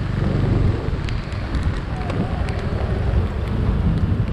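Wind buffeting a GoPro's microphone while riding an automatic scooter, over the low steady rumble of the engine and road.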